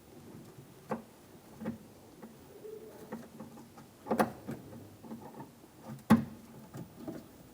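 A few scattered clicks and knocks of a door-handle linkage rod being handled and fitted inside a Ford Expedition's rear door, the loudest about six seconds in.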